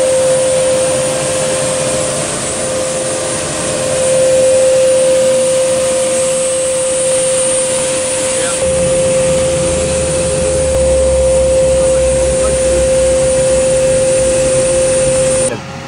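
Gas turbine on a C-130 running with a steady high whine over a loud rush of air; a deeper rumble joins in about halfway. The sound cuts off abruptly just before the end.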